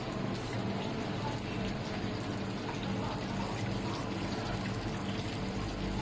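Steady hiss with a low hum, the constant background noise of a working restaurant kitchen.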